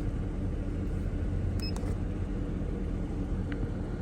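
Mercedes-Benz CLS550's V8 engine idling steadily, heard from inside the cabin, with one short electronic beep nearly two seconds in.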